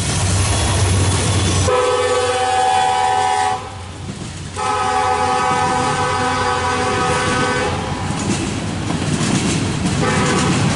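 Freight train passing: diesel locomotive engines and rail noise, then a locomotive's multi-chime air horn sounds two long blasts about a second apart, with a third starting near the end, over the rumble of double-stack intermodal cars rolling by.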